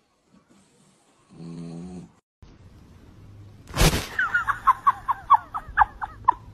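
A sleeping pet snores once, a short breath lasting under a second. After a cut, a sharp thump is followed by a rapid run of short, high, falling squeaks, about four a second.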